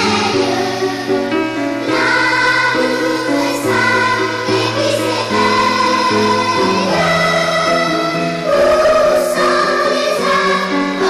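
A school choir singing in unison and harmony, holding each note for a second or so, with a low accompaniment underneath.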